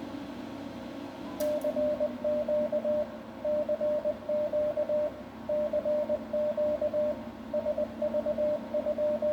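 Morse code (CW) sidetone: a single steady tone keyed on and off in dots and dashes, starting after a sharp click about a second and a half in. A steady low hum runs underneath.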